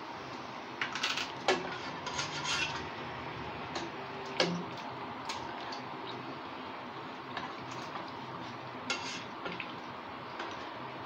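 A plastic ladle stirring vermicelli boiling in a pot of water, scraping and knocking against the pot: a cluster of scrapes in the first few seconds, a sharp knock about four seconds in, and more scrapes near the end, over a steady hiss.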